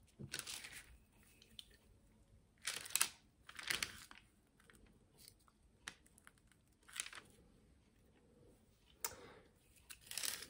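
Faint rustling and crinkling of parchment paper as hands handle a glass bottle, in about half a dozen short bursts.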